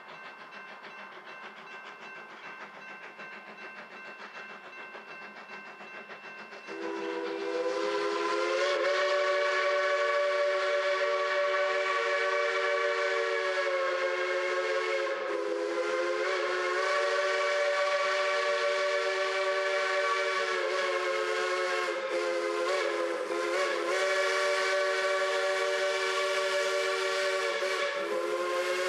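Ashton six-inch three-chime steam whistle on a steam locomotive, blown long for a road crossing: a loud held chord that cuts in about seven seconds in and sounds on with a few short wavers.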